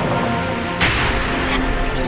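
Music with held, layered tones, broken a little under a second in by a sudden burst of noise, the loudest moment.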